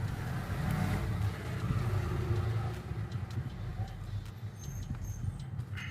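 Steady low rumble of background noise with a few faint clicks.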